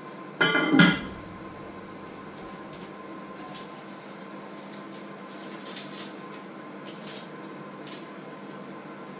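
A short, loud clatter of kitchen pots or utensils about half a second in. After it come faint, scattered knife clicks and scrapes on a wooden cutting board, over a steady low hum.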